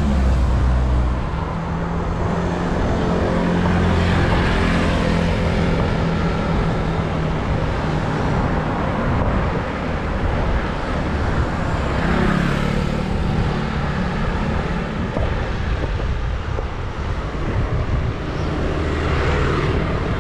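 Road traffic going past close by: a steady rush of motor vehicles, with engines swelling up and fading away several times.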